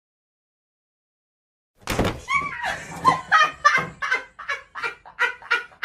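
Silence for about two seconds, then a person laughing hard in rapid repeated bursts, about four a second.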